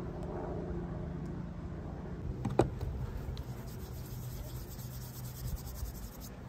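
Hands rubbing and stroking over the textured surface of a fiberglass leg cast, a fine scratchy rasp that starts about two and a half seconds in with a sharp tap. A low, steady rumble runs underneath.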